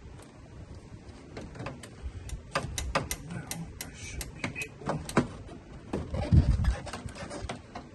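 Irregular clicks and knocks of hand tools and plastic air-intake parts being handled as the intake is unbolted and worked loose, with a louder dull thump about six seconds in.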